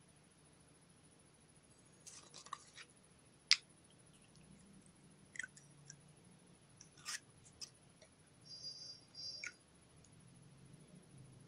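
Putty slime being worked by hand, giving faint scattered clicks and pops. The sharpest click comes about three and a half seconds in, and there is a brief squeak a couple of seconds before the end.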